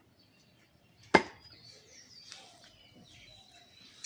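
A single heavy cleaver chop through a slab of beef into a wooden chopping block, about a second in.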